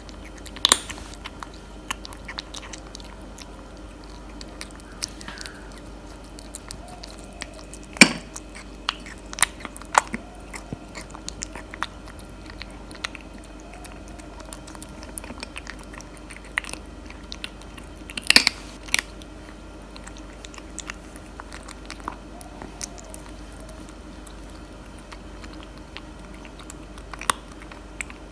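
Tabby kitten eating wet cat food and dry kibble close to the microphone: irregular wet chewing and crunching, with a few much louder sharp crunches scattered through, the loudest about eight and eighteen seconds in.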